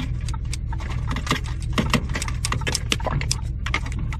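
Cab noise of a pickup truck on the move: a steady low drone under a rapid, irregular run of clicks and ticks.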